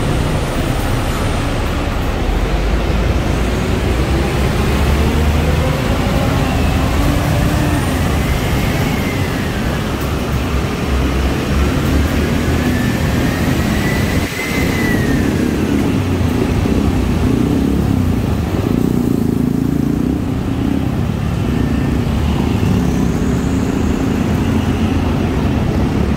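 Road traffic in slow, stop-and-go conditions: car and motorbike engines running, with an engine rising in pitch and then falling away twice around the middle.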